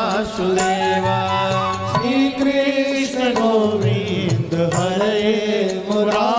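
Devotional Krishna bhajan music: a wavering melody over a steady percussion beat and a bass line.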